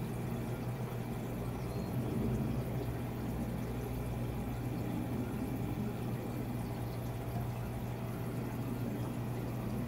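Water running steadily over a low, even hum.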